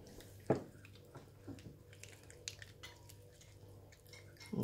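Small dog licking and chewing at a creamy lickable cat-treat paste squeezed from a packet held in fingers: faint, scattered wet clicks, with one sharper click about half a second in.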